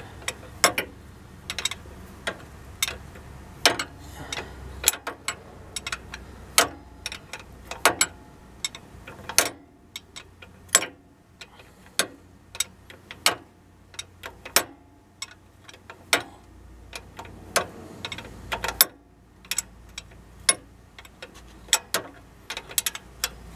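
Ratchet wrench clicking as it runs a 15 mm bolt in: sharp single clicks in irregular runs, about one or two a second.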